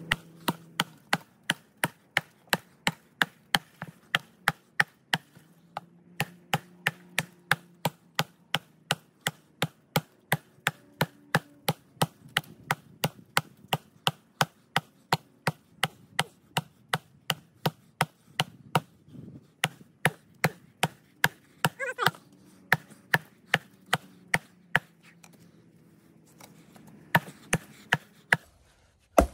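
An Adler canoe axe chopping into a fallen log: a long run of sharp, steady blows, about two a second, with a couple of brief pauses.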